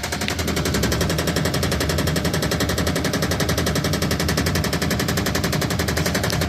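Haier portable fully automatic washing machine running with a loud, rapid, evenly spaced rattle of knocks that keeps up without a break. This is the noise problem the title puts down to the drum's damping spring, which is judged to be crooked.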